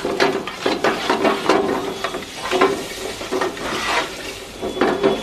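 Metal spoon scraping and stirring chopped onions in oil around a steel frying pan, in repeated short strokes, about two to three a second.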